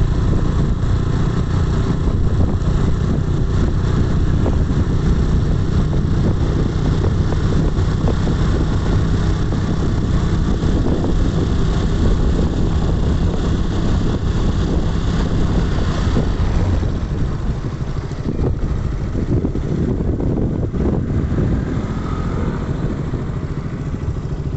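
Motorbike engine running steadily while riding along a road, with rumbling wind and road noise. About two-thirds of the way through, the engine eases off and the sound drops as the ride slows.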